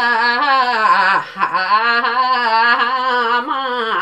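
A woman singing a Yakthung Limbu palam melody unaccompanied, in a long wavering line with a brief breath about a second and a half in.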